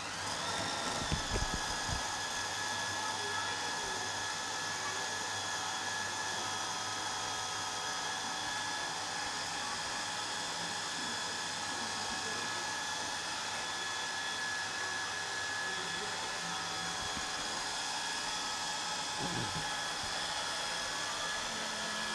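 Food processor motor running steadily at full speed with a whine, blending dates, nuts and oil into a crumbly pie-crust mixture. It comes up to speed in the first second.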